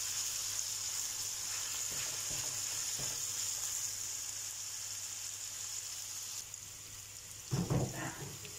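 Sliced mushrooms, red onion and chilies sizzling as they fry in a nonstick pan, with a few faint knocks of a spatula stirring them. A louder thump comes near the end.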